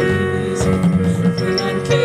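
Live band music from a jazz-leaning ensemble: held notes ring over a busy low bass line.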